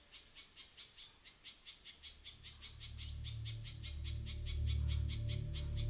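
Rainforest ambience: a rapid, evenly pulsed high chirping, about five or six chirps a second, from a calling animal. A low, sustained music drone fades in about two seconds in and slowly grows louder.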